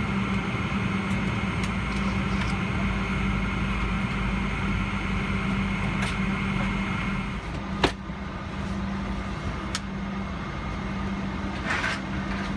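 Steady hum inside a parked Boeing 777-300ER's cabin at the gate. A high whine in it stops about seven seconds in, the hum drops a little, and a single sharp click follows just after.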